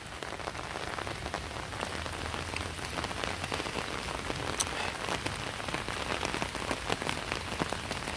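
Heavy rain falling on river water and muddy bank: a steady hiss with many single drops ticking close by.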